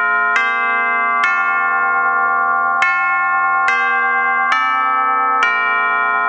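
Orchestral tubular bells (chimes) struck with hammers, one note at a time: six strikes of different pitches, each ringing on under the next, with a longer pause after the second.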